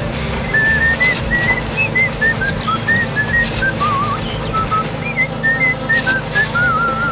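Background music led by a whistled melody of short notes and quick trills over a steady backing, with a cymbal-like wash about every two and a half seconds.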